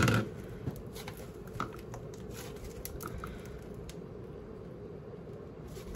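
Slime being kneaded and mixed by hand in a bowl to work in colouring: soft squishing with scattered small clicks.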